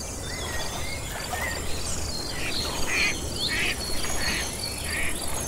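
Wetland nature ambience: a steady high insect drone with a rapid repeating chirp. From about halfway through, five short animal calls repeat roughly every two-thirds of a second.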